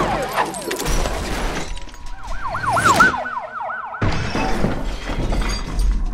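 Cartoon sound effects for an animated short: sliding, warbling whistle-like tones, with a quick wavering tone of about six wobbles a second around two to three seconds in, over a low rumble. Everything cuts off abruptly about four seconds in, then the rumble and new effects start again.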